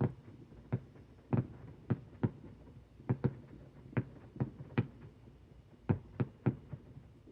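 Fireworks going off in an irregular string of sharp bangs, about two a second.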